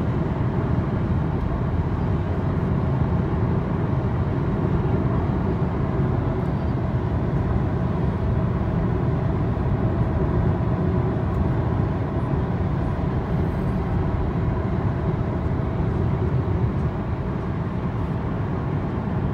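Steady in-cabin noise of a Honda Civic 1.6 cruising at about 115 km/h on the highway: a low, even rumble of tyres on the road and wind, with the engine's hum underneath, unchanging throughout.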